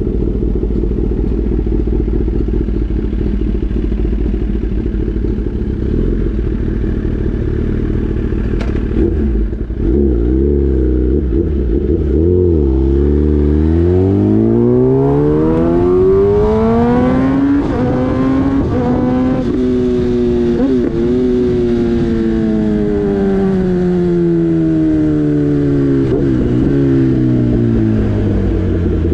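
Motorcycle engine under way with a low wind rumble. Around the middle the revs climb steadily for several seconds, then fall away slowly as the throttle eases.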